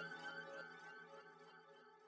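Fading tail of background music ringing out, dying away to near silence about midway through.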